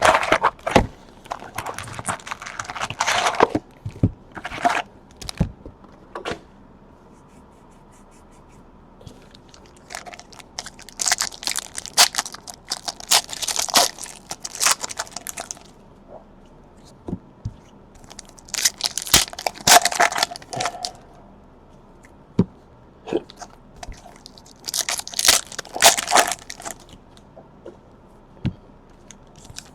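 Trading card packaging being torn and crinkled open: plastic wrap and pack wrappers tearing and crackling in several bursts of a few seconds each, with quiet pauses between.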